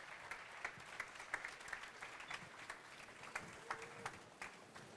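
Audience applauding, faint, with scattered individual claps standing out.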